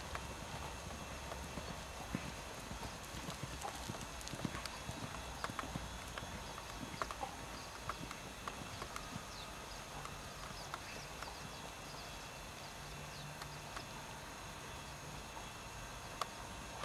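Hoofbeats of a ridden horse cantering on a dirt arena: a steady run of dull thuds and knocks.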